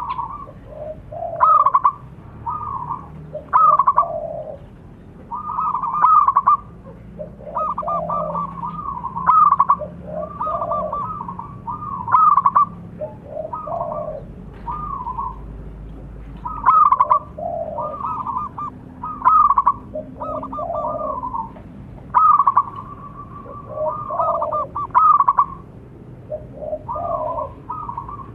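Zebra doves cooing, phrase after phrase with only short gaps. Two sets of calls at different pitches overlap and answer each other.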